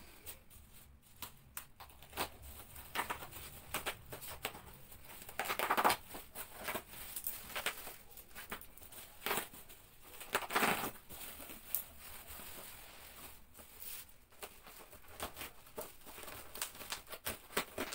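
Packaging being unwrapped and handled: faint rustling and crinkling with scattered light knocks and clicks, and two louder spells of rustling or tearing about six and ten seconds in.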